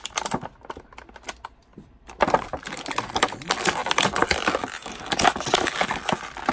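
Clear plastic packing bag crinkling as hands work an action figure out of it: a crackle of small crisp clicks, sparse at first and much busier from about two seconds in.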